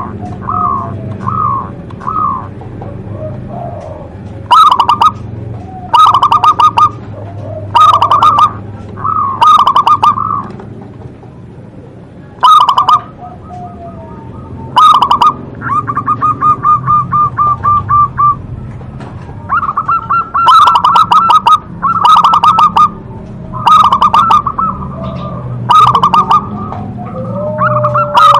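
Zebra dove (perkutut) cooing in repeated loud phrases of several quick notes, with a rapid even trill of notes about halfway through.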